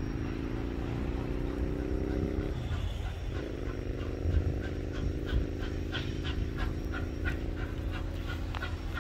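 Whistle of K163, a Victorian Railways K class 2-8-0 steam locomotive, blowing a long blast, breaking off about two and a half seconds in, then sounding a second long blast that fades toward the end, over a low rumble and a quick regular ticking.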